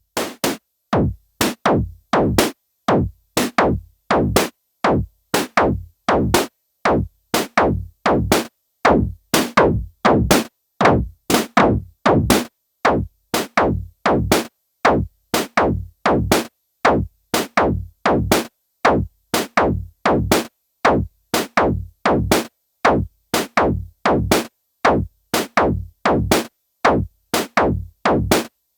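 Korg Kaossilator handheld synthesizer playing a repeating electronic drum-machine-style pattern. It is a steady beat of short, clipped hits, about two a second, each cut off sharply with a silent gap before the next.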